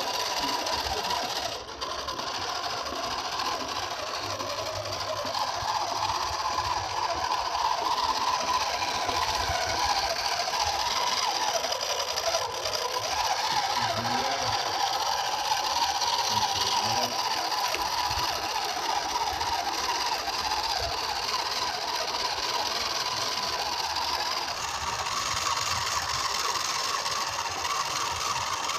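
Small electric gear motor of a homemade RC dump truck whirring steadily as it drives under a full load of mangoes.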